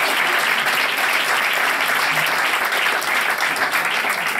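Audience applauding, steady and dense.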